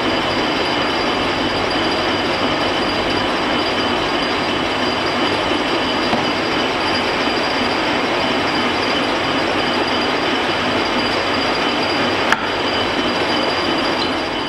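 Metal-turning engine lathe running under power through a single-point threading pass: a steady whining, hissing mechanical noise with two constant high tones. A sharp click about twelve seconds in, and the noise starts dying away right at the end as the lathe is shut off.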